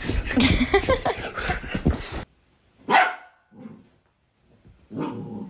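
A dog barking in a dense run of barks that cuts off suddenly about two seconds in, followed by one loud bark about three seconds in and another shorter bark near the end.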